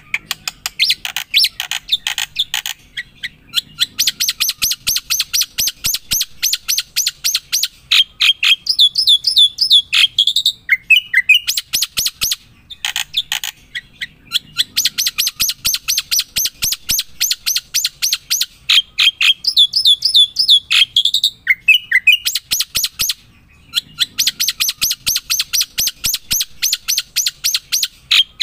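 A bird chirping in long, rapid runs of high notes, broken by short pauses about every ten seconds.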